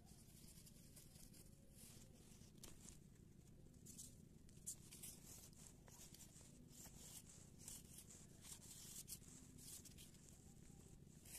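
Near silence: faint outdoor background noise with scattered faint high clicks and ticks.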